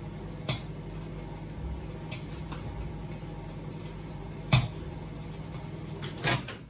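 Microwave oven running with a steady hum while melting butter, with a few light clicks and one sharp knock about four and a half seconds in. Near the end comes a double click as the microwave is reached for, and the hum drops away.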